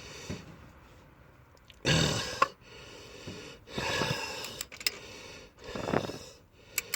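A man breathing hard: three heavy, noisy exhales about two seconds apart, with a few faint clicks between them, while he strains on a wrench.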